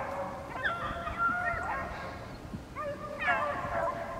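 Several beagles baying and yelping in overlapping, gliding cries while running a rabbit's trail.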